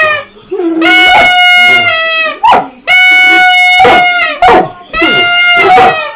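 Three long, steady toots from a horn-like noisemaker, each about a second long, with a golden retriever answering between them in short cries that bend up and down in pitch: its goofy 'moose howl'.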